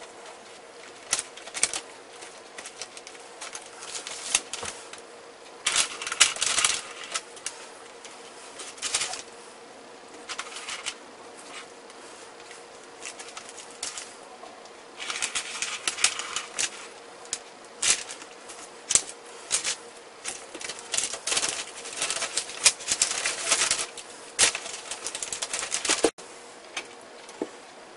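Irregular rustling and crinkling of paper, with clicks of bamboo skewers, as gloved hands thread skewers through a chicken quarter.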